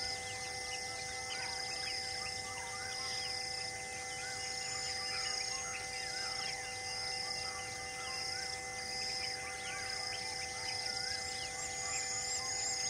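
Forest ambience: many birds chirping and calling, with a high note repeated about once a second, over a steady hum of even tones.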